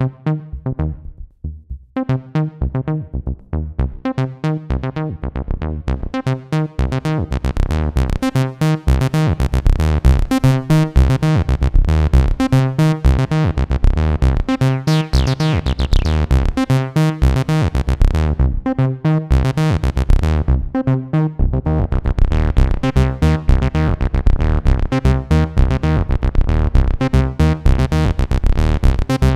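Behringer TD-3-MO analog bass synthesizer playing a squelchy, driving acid bassline sequence in the TB-303 style, its fast repeating notes brightening and darkening as the filter moves, opening widest about halfway through.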